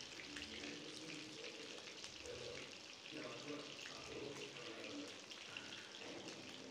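Marinated fish pieces shallow-frying in hot oil in a pan: a steady sizzle with fine crackling and popping.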